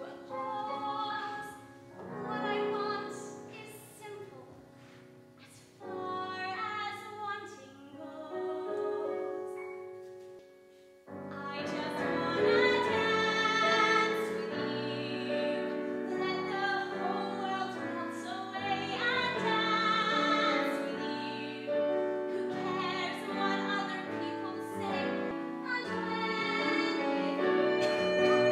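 A woman singing a musical-theatre ballad with vibrato over instrumental accompaniment, in separate phrases at first. About eleven seconds in, a fuller backing comes in and the music grows louder.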